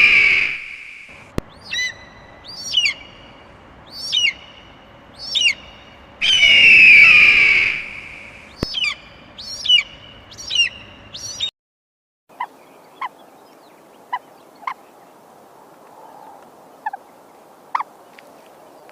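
Calls of a large bird: a long, harsh call followed by a run of short, sharp calls about one a second, given twice over. After a sudden cut, a quieter recording follows with scattered short call notes.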